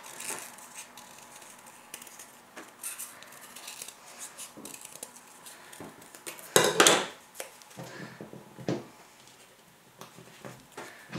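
Scissors snipping small pieces of white paper, with paper handling and light clicks on a wooden tabletop. A louder clatter comes about six and a half seconds in.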